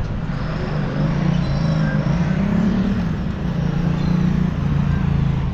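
Road traffic: cars driving past, a steady low engine hum with tyre noise that swells a little about halfway through.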